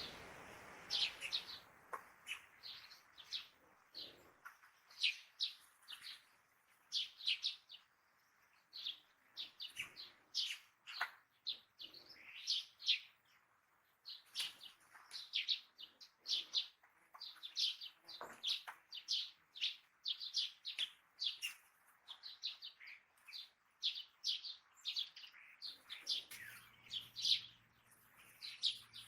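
Songbirds chirping: many short, high chirps in quick runs, one after another, with brief pauses between runs.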